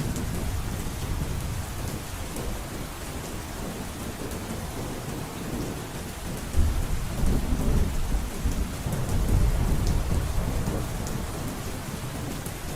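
Heavy rain drumming steadily on a roof. A deep rumble of thunder swells in suddenly about halfway through and fades over a few seconds.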